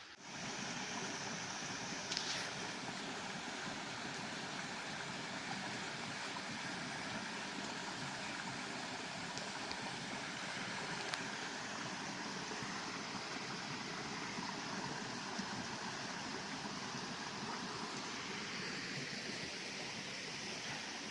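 Running water of a creek, a steady rush that starts abruptly and holds even throughout, with a few faint clicks.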